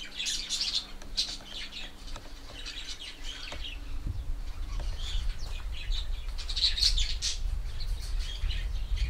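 Birds chirping in short, repeated high calls, with a low rumble coming in about four seconds in.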